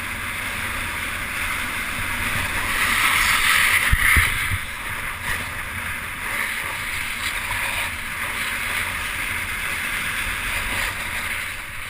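Snowboard sliding and scraping over snow, a steady rushing hiss that swells and fades, with a low thump about four seconds in.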